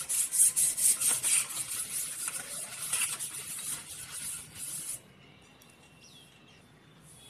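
A brush scrubbing butter over the base of a metal cake tin to grease it: a fast run of scratchy, rasping strokes that stops about five seconds in.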